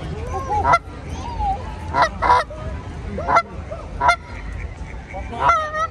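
Canada goose honking: a series of about six short, loud honks spaced roughly a second apart.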